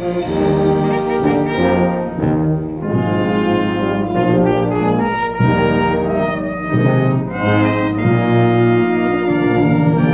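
Concert wind band playing, with trombones and trumpets to the fore in full, held chords that change about every second.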